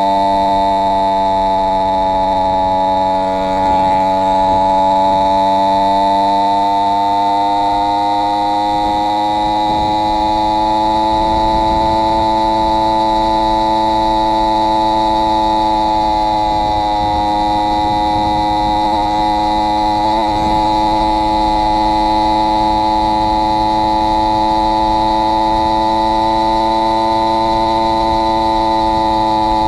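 Two-stroke motorized-bicycle kit engine running under steady throttle while riding, its pitch drifting slightly up and down as the revs change. The engine is running with a doubled base gasket, which the owner says cost it power.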